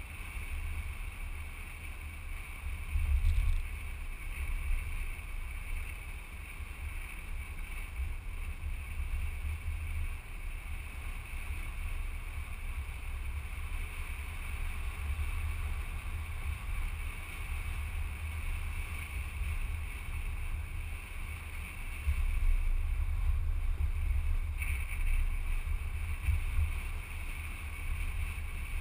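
Wind buffeting a microphone on the outside of a moving car, a low rumble that gusts louder a few seconds in and again late on, over a steady hiss of driving noise.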